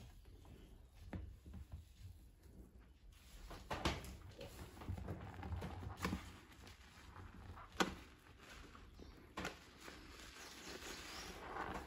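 Hands squeezing soap-soaked sponges in a bowl of thick foam: soft squishing and crackling of suds, with a few sharp wet squelches and soapy water running off as a sponge is lifted.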